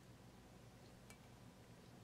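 Near silence: faint room tone with a low steady hum, and one faint click about a second in.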